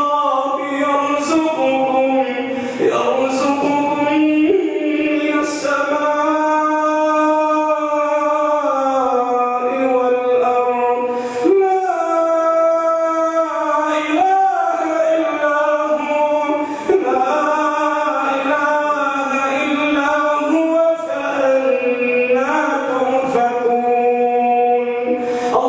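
A man chanting in Arabic into a microphone, in a sung style with long held notes that slide up and down between short pauses.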